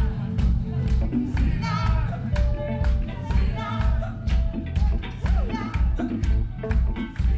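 Live band music with a steady low beat, about two and a half pulses a second, sharp claps or percussion hits, and voices singing over it.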